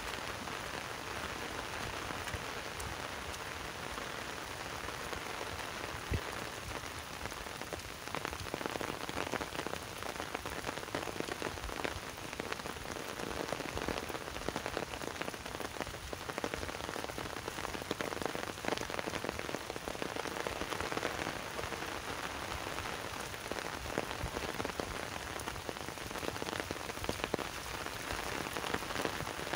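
Heavy rain falling steadily on wet grass and puddled ground: a dense hiss of many individual drop ticks, growing a little heavier about eight seconds in.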